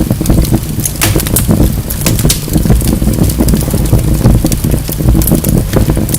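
Wood fire burning in a fireplace: a steady low rumble of flames with frequent crackles and snaps from the logs, one sharper pop about a second in.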